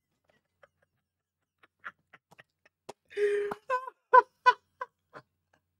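A man laughing. At first only faint breaths and clicks, then about three seconds in a burst of high-pitched laughter in about five short rhythmic 'ha' pulses.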